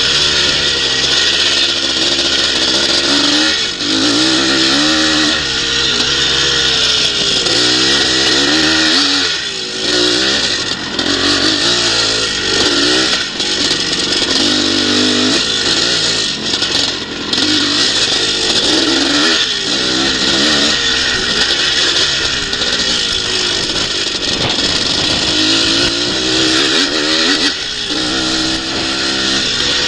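Twinshock motocross bike's engine heard from on board, revving up and falling away again and again as the rider opens and shuts the throttle through the corners and straights of a scramble course.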